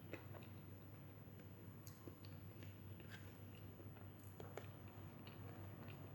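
Quiet close-miked chewing, with faint scattered wet mouth clicks over a steady low hum.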